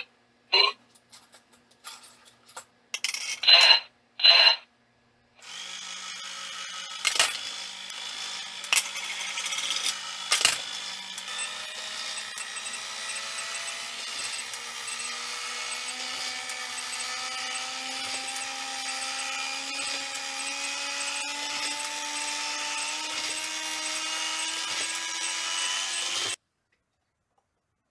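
Small electric motor and gear mechanism inside a No-Face (Kaonashi) coin-bank toy run from a bench power supply. First come a few short bursts, then a steady motor whine whose pitch climbs slowly as the supply voltage is turned up, until it cuts off abruptly near the end.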